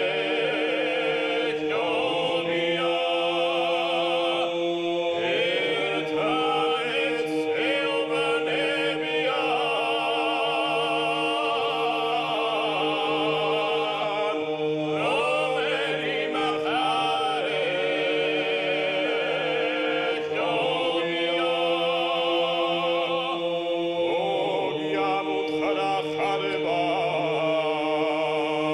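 Background music: singing voices with vibrato over a steady held drone note.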